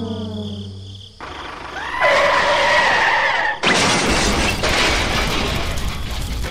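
A run of loud noises: a falling horn-like tone that ends about a second in, then a wavering two-tone whine, then a long noisy crash from about halfway to the end.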